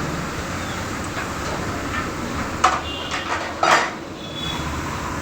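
Metal tyre-changing tools clanking: two sharp clanks with a brief ring, about halfway through, over a steady low hum.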